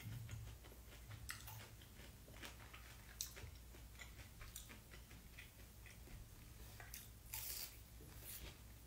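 Faint chewing and crunching of battered fried food, with scattered light clicks, over a low steady hum.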